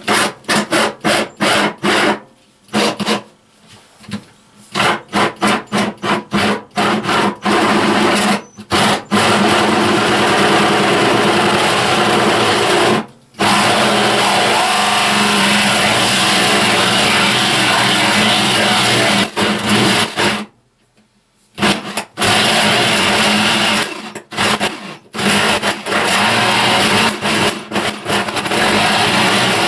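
Electric power drill turning an old adjustable three-blade hole cutter, boring a drain hole through a wooden floor. The drill runs in many short on-off bursts at first, then in long steady runs, stops for about a second roughly twenty seconds in, and ends in short bursts again.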